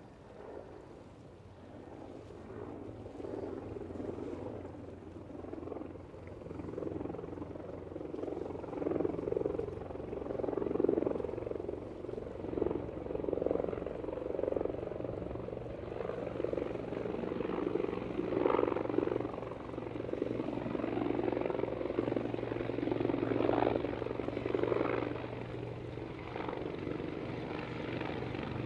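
Propeller engine of a de Havilland DHC-3 Otter floatplane running, a steady drone that grows louder over the first ten seconds or so and then holds.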